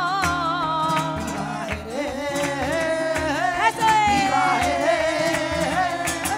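Flamenco cante: a woman sings long ornamented phrases with a wavering pitch, including a long falling held note midway, over flamenco guitar and rhythmic hand-clapping (palmas).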